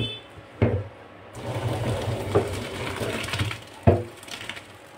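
A metal cooking pot and strainer clattering as boiled rice is tipped out to drain. There are three sharp knocks and a stretch of rattling in the middle.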